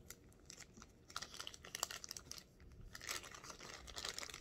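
Clear plastic packaging bag crinkling in the hands as a pair of sunglasses is slid back into it, faint and irregular, busier in the last second or so.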